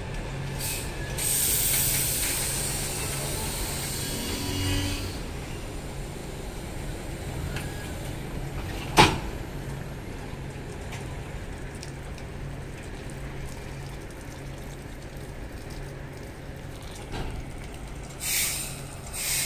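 Standing passenger train's air brake system hissing as air vents for a few seconds near the start, with one sharp metallic knock about nine seconds in and two short hisses near the end, over a steady low hum.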